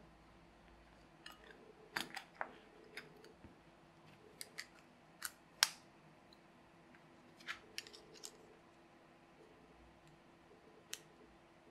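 Scattered small, sharp clicks and taps of clear acrylic plates and a printed circuit board being handled and fitted together, about a dozen of them with the loudest a little past halfway, over the faint steady hum of a fan.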